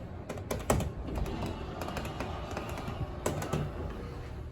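KONE elevator car travelling down: a steady low hum with scattered clicks and knocks from the moving car.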